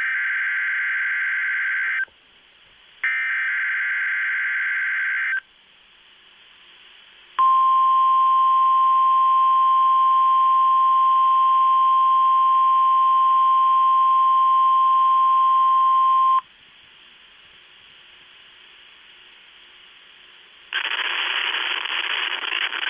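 NOAA Weather Radio weekly test alert: two bursts of buzzy SAME header data tones about a second apart, then the steady 1050 Hz warning alarm tone for about nine seconds. An announcer's voice comes in near the end.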